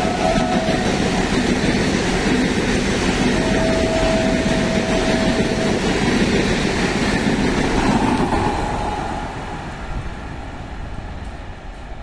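Electric multiple-unit passenger train coaches rushing past at speed, with a dense rumble and clatter of wheels on the rails. A steady single tone sounds briefly at the start and again for a couple of seconds about four seconds in. The rumble fades from about eight seconds in as the last coach goes by.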